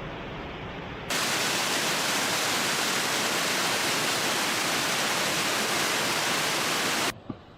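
Waterfall rushing, a steady even wash of water noise. About a second in it jumps suddenly much louder and brighter, as from right beside the falls, and it drops back suddenly just before the end.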